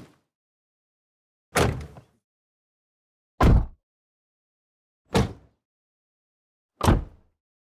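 A car door shut from outside, four times in a row. Each close is a single heavy thud that dies away quickly, with the closes about a second and a half to two seconds apart and silence between.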